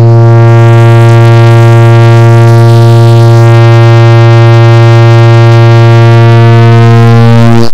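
A clock-tick sound effect repeated so fast that the ticks merge into a very loud, steady electronic buzzing tone: a deep hum with a stack of overtones above it, cutting off suddenly near the end.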